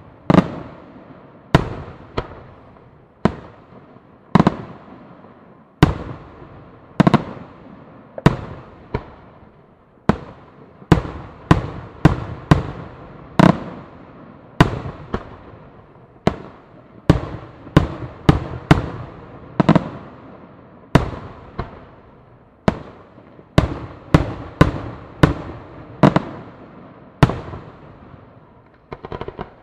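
Aerial fireworks shells bursting in rapid succession: sharp booms about one to two a second, each trailing off in a fading echo, with the bursts coming thickest in the second half.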